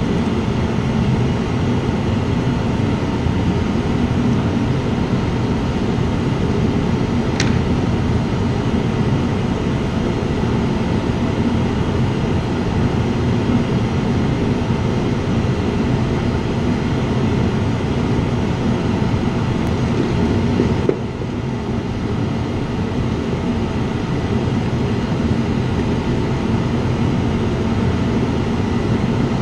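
Steady low rumbling noise throughout, with a brief high tink about seven seconds in and a slight drop in level about two-thirds of the way through.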